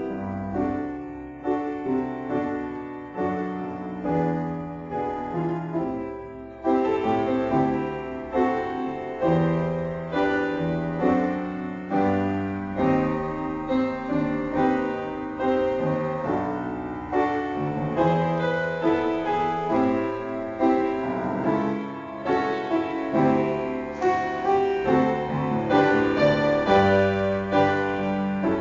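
Background piano music, a gentle melody of struck notes in a steady rhythm. It becomes fuller and louder about six and a half seconds in.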